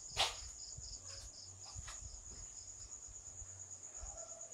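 Crickets chirping: a steady high trill with faint regular pulsing underneath, plus a single knock about a quarter of a second in.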